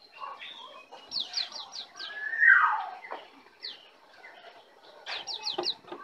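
Birdsong from a masteran tutoring recording for songbirds. A loud call sweeps down in pitch about two and a half seconds in. Quick runs of about five high, falling chirps come about a second in and again near the end.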